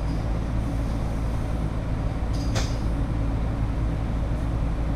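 Steady machine hum, like a fan or heater running in a workshop, with a single light click about two and a half seconds in.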